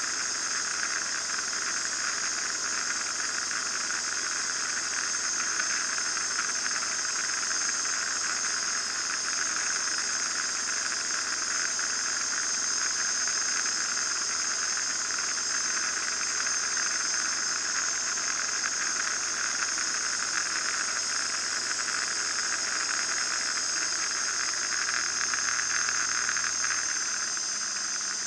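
Steady cabin noise of an RV-9A light aircraft in cruise: engine, propeller and airflow heard as an even, unchanging hiss.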